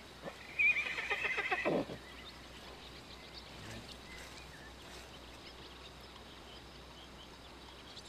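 A horse whinnying once, about a second and a half long, starting high and falling in pitch with a quavering tremble.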